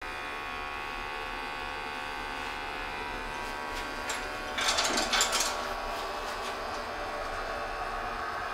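Kostrzewa Mini Bio pellet boiler running, a steady electric motor whir with a fixed hum. About halfway through comes a brief, louder clattering burst.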